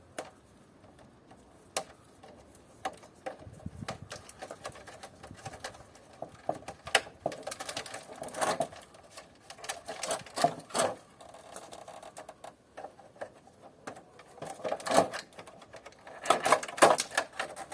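Hands working over the small parts of a dismantled air conditioner: irregular clicks, taps and rustles of plastic and metal, growing busier in the second half and clattering densely near the end.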